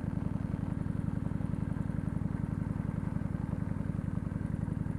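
Motorcycle engine running steadily at low revs, with a fast, even beat.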